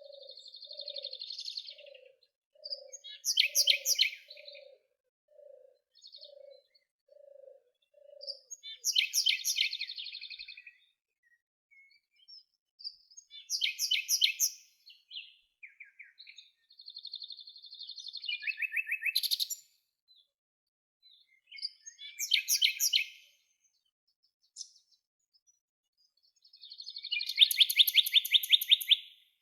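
Songbird singing in short, rapid, high-pitched phrases every few seconds, with quiet gaps between. A low note repeats about one and a half times a second during the first eight seconds or so.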